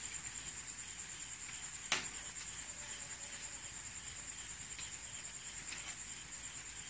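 Crickets trilling steadily at a high pitch, with a single sharp click about two seconds in.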